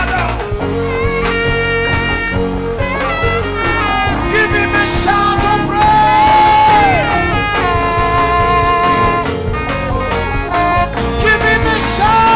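Live worship band playing an instrumental passage. A lead instrument holds long notes over the band, and a few of them slide down in pitch as they end.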